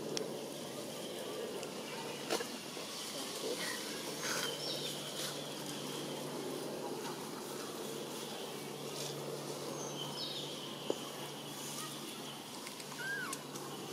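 Forest ambience: a steady hum of insects, with a few short high chirps scattered through and a couple of sharp clicks, one about two seconds in and one near eleven seconds.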